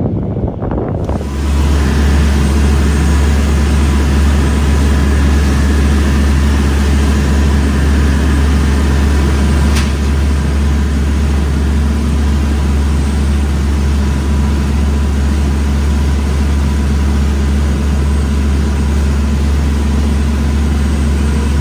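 A boat engine running steadily under way, a strong low drone with water rushing along the hull, coming in abruptly just over a second in. There is a single sharp click about ten seconds in.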